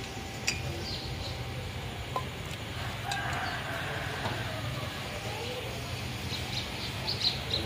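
Street background with a steady low hum and light metal clinks from a big aluminium cooking pot and ladle being handled, a cluster of them loudest near the end. A short wavering call sounds in the middle.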